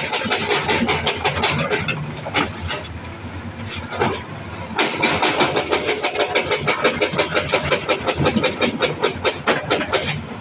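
Heavy diesel engine running with a fast, even clatter of about seven pulses a second. It eases off for a couple of seconds in the middle and then comes back as strong as before.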